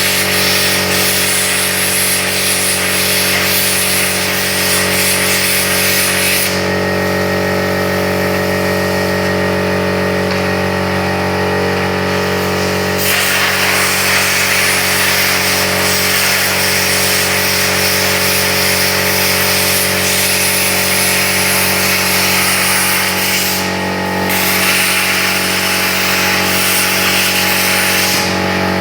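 Plasma cutter cutting: a loud, high hiss over a steady machine hum. The hiss stops for several seconds about a quarter of the way in, then resumes, breaks off briefly near the end and stops just before the close.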